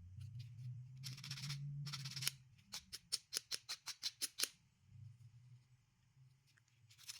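Emery board filing the edge of a 3D-printed plastic piece: one longer stroke, then a quick run of about a dozen short strokes, roughly six a second.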